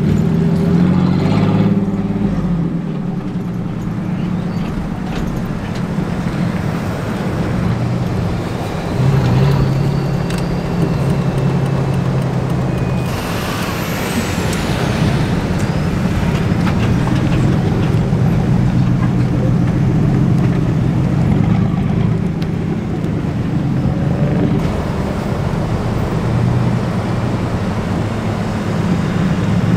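Car engine and road noise heard from inside a car driving slowly, the engine note shifting in pitch at the start and then holding steady. About halfway through there is a louder rush of noise lasting a second or two.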